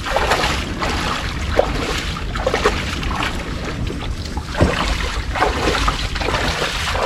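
A small john boat on the water at a launch: a steady low rumble with irregular splashes and knocks scattered through it.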